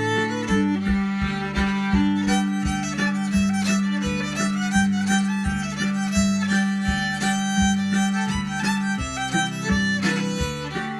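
Instrumental music: a lively tune of quick, evenly paced notes played over a steady low drone note.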